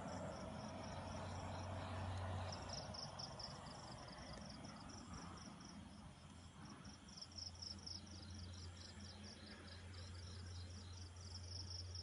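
Night insects, crickets by the sound of it, chirping in a fast, even pulse of high notes that grows louder about two and a half seconds in. A faint low hum runs underneath, dropping out for a few seconds in the middle.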